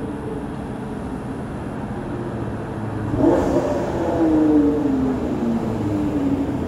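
Motor vehicle engine running steadily. About three seconds in it gets louder, and its pitch then slowly drops.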